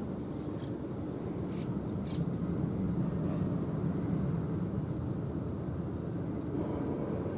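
Steady low rumbling background noise, with two brief faint high hissing sounds about one and a half and two seconds in.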